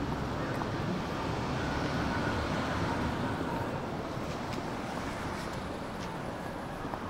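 Steady city street noise with road traffic, with a few faint ticks.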